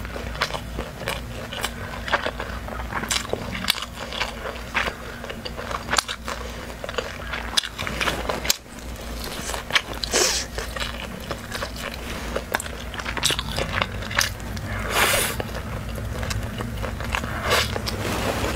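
Close-miked chewing and biting as a person eats barbecued meat off a skewer: frequent short mouth clicks and crunches, over a steady low hum.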